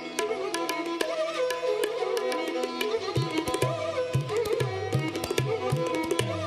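Instrumental background music: a melody over quick hand-drum beats, with a deeper bass part coming in about three seconds in.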